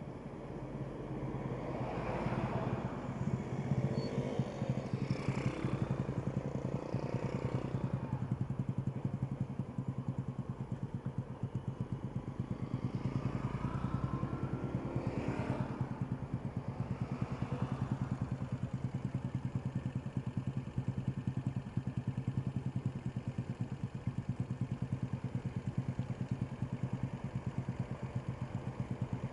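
A vehicle engine idles close by with a fast, steady pulse, while other vehicles drive past twice, about two seconds in and again around fifteen seconds in.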